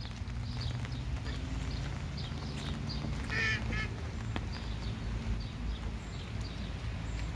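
A duck quacking: a quick run of two or three calls a little past the middle, over a steady low background rumble.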